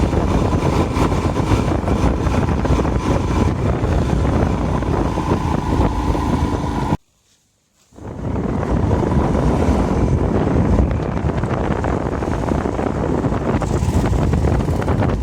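Strong wind buffeting the microphone over the lake's waves at night, a loud, steady rushing noise. It cuts out for about a second midway and then resumes.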